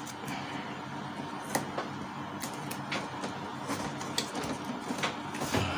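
Scattered light clicks and taps of a Canon G1010 printer's plastic cover panels being fitted and pressed shut by hand, about five in all, over a steady low hum.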